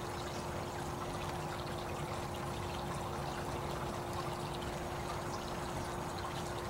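Steady rushing noise, even and unbroken, with a constant hum running underneath.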